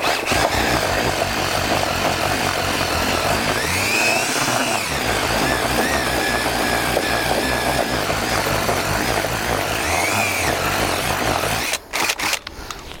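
Electric drill running steadily as it mixes groundbait, its motor whine rising and falling in pitch a couple of times, then stopping abruptly near the end.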